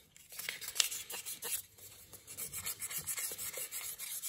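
Sandpaper rubbed by hand along a stabilized-wood knife handle: quick scratchy back-and-forth sanding strokes, with a short lull near the middle.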